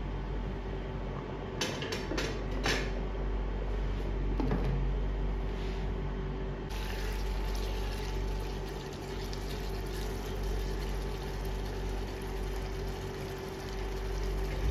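Rice boiling in water in a large stainless steel stockpot, stirred with a metal ladle that knocks against the pot a few times about two seconds in. About seven seconds in the sound changes to the bubbling of a chicken masala gravy simmering in a nonstick pan.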